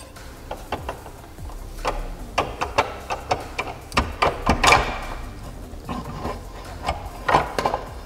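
Irregular metal clicks and knocks as the rear housing of a Nissan CD009 six-speed manual transmission is rocked loose and slid off its shafts, with a louder clatter about halfway through.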